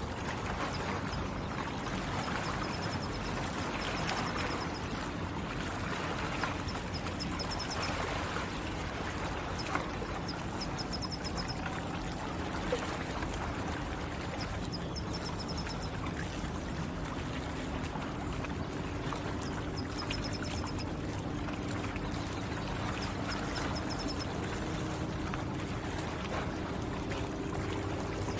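Water lapping and trickling gently against stones at the shoreline, a steady gurgling wash. Every few seconds comes a short, high, rapid trill from a small bird.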